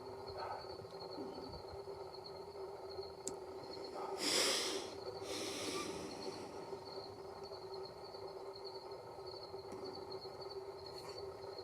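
Insects chirring steadily in the background, with a short breathy, rustling hiss about four seconds in; no shot is fired.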